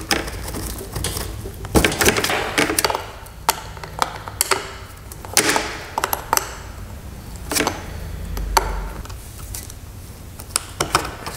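An 11 mm wrench clicking and scraping on the positive terminal bolt of a riding mower's lead-acid battery as the nut is worked loose, in irregular clicks and knocks.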